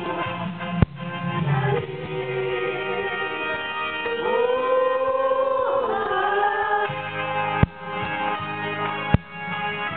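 Group of women singing a song through microphones to electronic keyboard accompaniment, with a few sharp clicks breaking in about a second in and twice near the end.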